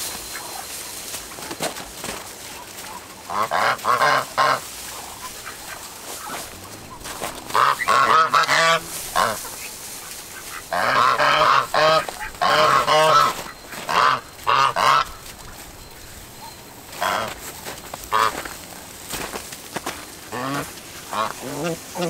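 Domestic geese honking in bouts of repeated honks. The calls start a few seconds in, are loudest in the middle, and thin out to a few single honks near the end.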